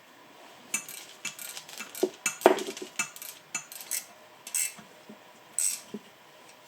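Irregular sharp metal clinks and taps of turbocharger parts and hand tools being handled as a new core is seated in a BV43 turbo's housing, starting about a second in and stopping near the end.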